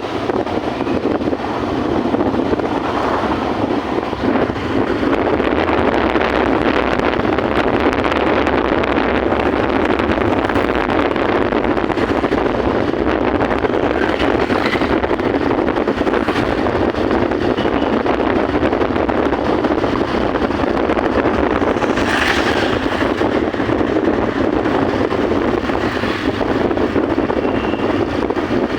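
Steady running noise of a moving train, with wind buffeting the microphone.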